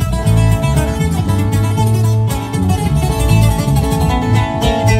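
Acoustic guitars playing a corrido instrumental passage without singing: a picked melodic lead over rhythm guitar, with a low bass line moving underneath.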